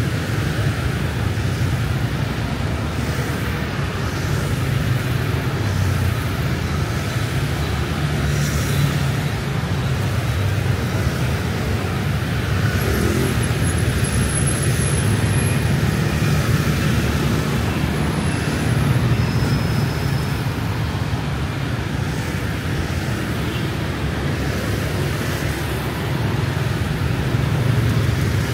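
Steady city street traffic noise: a continuous hum of passing vehicle engines and tyres, with no single vehicle standing out.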